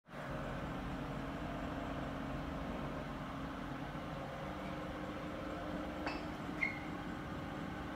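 Steady low mechanical hum with a few faint steady tones, broken by two light clicks about six seconds in.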